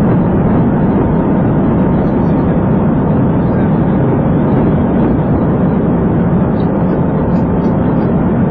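Steady engine, tyre and wind noise of a police car driving at speed during a chase, heard from inside the cruiser.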